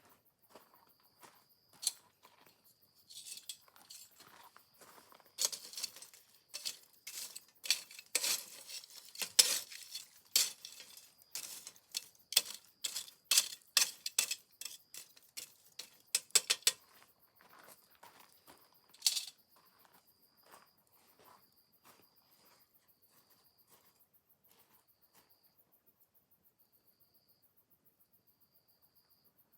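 Metal utensils clinking and scraping against cookware in quick irregular strokes for about twenty seconds, then stopping. Crickets chirp steadily underneath and are left on their own near the end.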